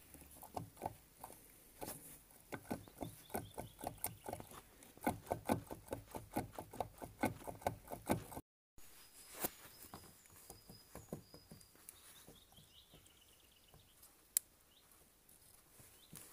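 Quick, light metal clicks and scrapes of a tool prying and tapping inside an opened moped engine's crankcase around the crankshaft, coming several a second and thinning out after about eight seconds.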